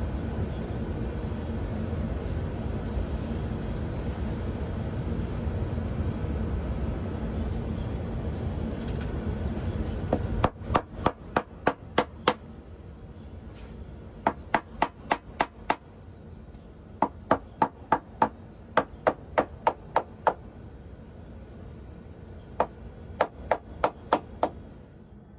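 A steady low rumble for about the first ten seconds, then a shoemaker's hammer striking a leather sole in five quick runs of sharp blows, about four a second, with short pauses between runs.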